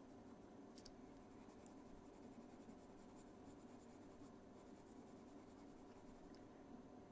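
Faint scratching of a Caran d'Ache Pablo coloured pencil shading on paper, with small ticks of the lead, over a steady low hum.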